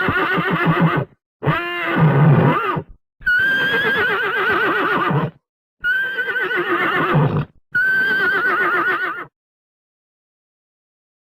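Horse whinnying again and again: five high, wavering whinnies, each one to two seconds long, with short breaks between them. They stop about nine seconds in.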